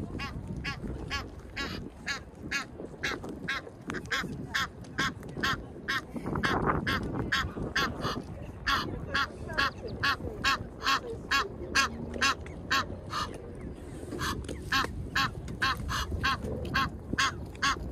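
Waterfowl on the lake giving short quack-like calls over and over, about three a second, with a brief pause about two-thirds of the way through, over a low background rumble.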